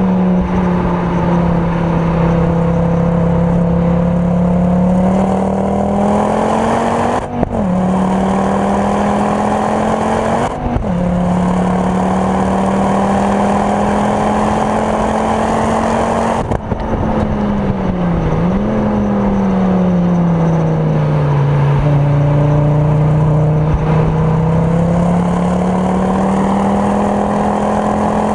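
Ford Focus RS Mk2's turbocharged 2.5-litre five-cylinder engine, tuned with a Mountune conversion and a full Milltek exhaust, driven hard on track, heard from inside the cabin. It pulls at high revs with brief breaks about seven and ten seconds in as it shifts up. Past halfway it lifts off and the pitch falls on the downshift, then it picks up again.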